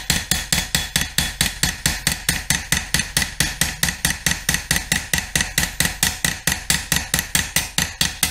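Light peening of a hand-forged steel sickle edge: a ball-peen hammer strikes the blade on a peening anvil made from an old sledgehammer head, in rapid, even blows about four or five a second, each with a metallic ring. The hammering thins the worn cutting edge and draws material out to it before honing.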